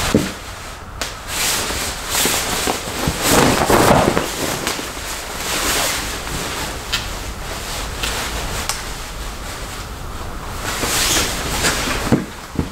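Long nylon salon cape rustling and swishing in loud bursts as it is shaken out, swung around a seated person and settled over them, with a few light clicks along the way.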